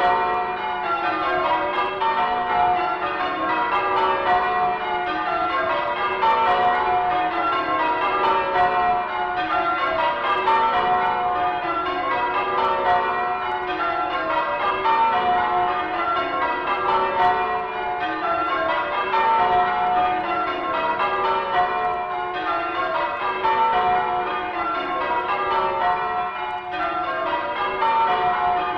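A ring of church tower bells rung in changes, strike following strike without a break, from a 1960s His Master's Voice sound-effects record played on vinyl.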